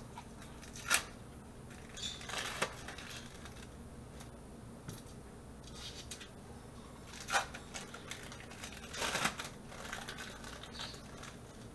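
Individually wrapped processed cheese slices being peeled out of their thin plastic wrappers by hand: scattered short crinkles and rustles of plastic film, with a few sharp clicks.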